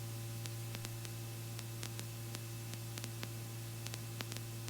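Steady low electrical hum and hiss from the helicopter's intercom and radio audio feed between transmissions, with a few faint steady tones and scattered faint clicks.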